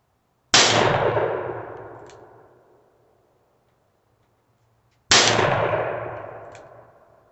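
Two shots from a Taurus Tracker .357 revolver firing .38 Special rounds, about four and a half seconds apart. Each is a sharp crack followed by an echo that dies away over about two seconds.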